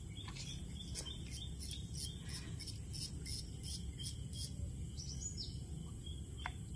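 Small birds chirping in short, repeated high calls, with a few falling notes about five seconds in, over a steady low rumble.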